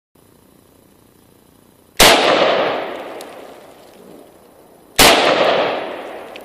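Two gunshots about three seconds apart, each a sharp crack followed by a long echo that dies away over a couple of seconds.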